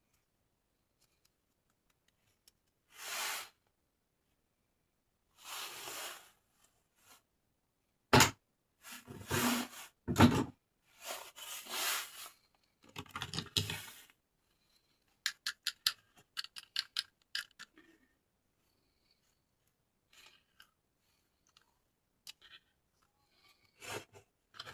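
Hands unboxing toys: packaging rustling and scraping, a few sharp knocks of objects set down, then a quick run of about ten clicks, followed by faint ticks.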